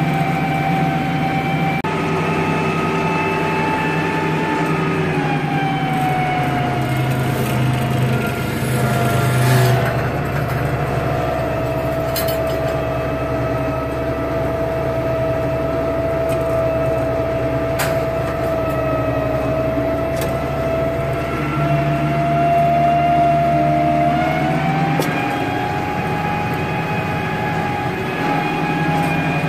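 Diesel engine of an International 3588 2+2 tractor running steadily under load, heard from inside the cab while it pulls a 25-foot disk through corn stubble. The engine note drops in pitch about six seconds in, holds lower, then climbs back up near the end, with a short rush of noise around ten seconds in.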